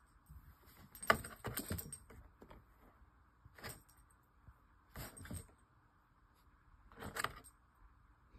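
Short bursts of small metal jingling with some scuffling, about five times with quiet between: a puppy's collar tags jingling as it scampers and tussles with a kitten around a cardboard box.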